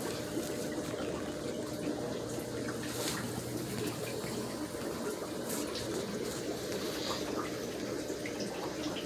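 Steady running and trickling water from aquarium filtration, with a faint steady hum under it.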